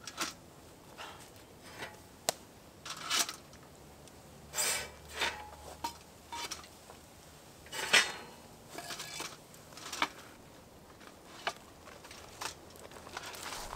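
Hot firebricks being loaded into a metal bucket: scattered clinks, knocks and scrapes of brick against metal, the sharpest about eight seconds in.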